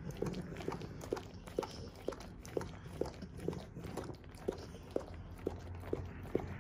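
Pit bull licking peanut butter off a plastic freezer bag: steady wet licks about twice a second.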